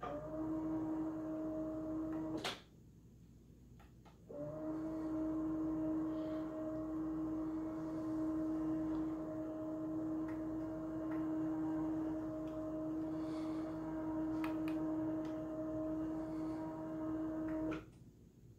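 Motorized projection screen's roller motor humming steadily as the screen rolls up. It stops with a click about two and a half seconds in, starts again a couple of seconds later, and runs for about thirteen seconds before cutting off near the end.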